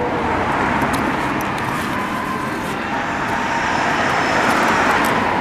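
Steady engine noise with no clear beat, growing louder about four seconds in and then easing slightly.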